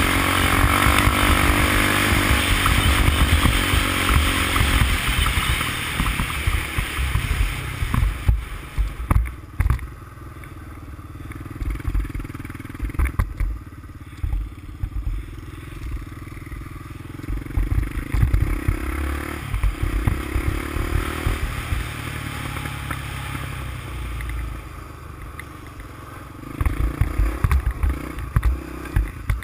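A 350X ATV's single-cylinder engine running under throttle as it rides a snowy trail, loud for the first few seconds, then easing off, with the revs rising and falling again later. Frequent low thumps come through as the machine goes over bumps.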